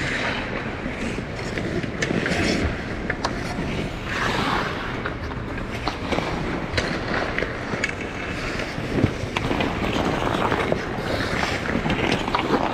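Ice skate blades gliding and scraping on rink ice, a swish roughly every two seconds with small clicks, over a steady rushing noise.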